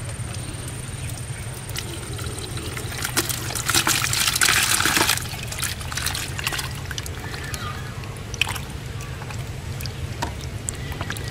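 Water pouring and trickling out of a plastic-bottle fish trap into a plastic bucket as the catch is emptied, with one louder splashing pour about four seconds in and scattered drips and splashes around it.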